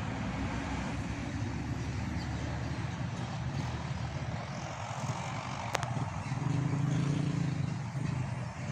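Heavy diesel road traffic, large trucks and buses, passing slowly with a steady low engine drone that grows louder about six seconds in. There is a single sharp click a little past halfway.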